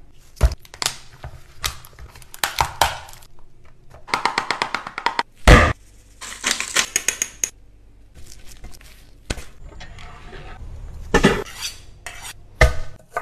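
Metal kitchen utensils clinking and scraping: scattered sharp clicks and knocks, with two quick runs of rapid clicks in the middle.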